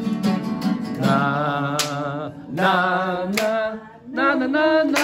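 Live song: a voice singing a melody with held notes over a strummed acoustic guitar.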